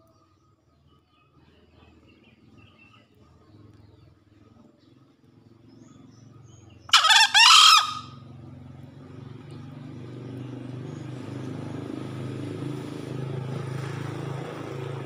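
Male green junglefowl crowing once, a short two-part crow about seven seconds in. Afterwards a low steady rumble slowly grows louder.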